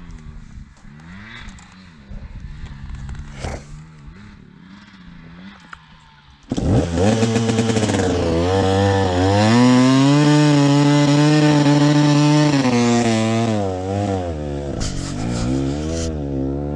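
Dirt bike engine running at low revs, then suddenly much louder about six seconds in as it revs up and holds high for several seconds under load on a hill climb, before dropping back to a lower, steady run.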